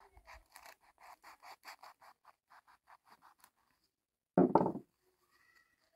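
A quick rhythmic run of light scraping strokes, about five a second, that stops after about three and a half seconds. A brief loud thump follows about a second later.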